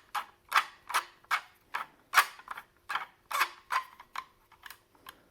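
Screw being turned by hand into a 3D-printed plastic stand, giving a sharp click about two or three times a second as it bites in. The clicks stop shortly before the end.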